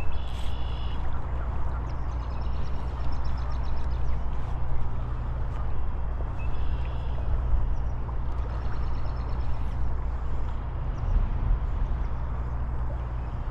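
Steady rushing of river water with a low rumble, and short high chirping phrases every few seconds.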